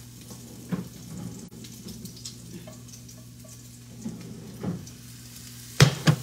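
Pork frying in a stainless steel skillet, sizzling softly under a steady low hum, with a few light knocks and a sharp metal clank near the end as a utensil strikes the pan to stir.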